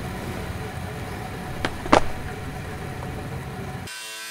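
A low steady rumble with two sharp knocks about a second and a half and two seconds in. Near the end it gives way abruptly to a DeWalt angle grinder whining as it cuts into metal.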